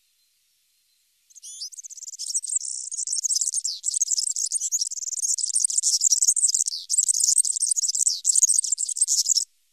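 European serin singing: a long, fast, high-pitched song of rapid notes, starting about a second in and running for about eight seconds before stopping.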